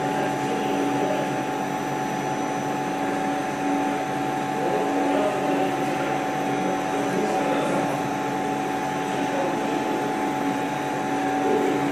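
Fish meal processing machinery running steadily: a continuous hum with a few steady whining tones over it.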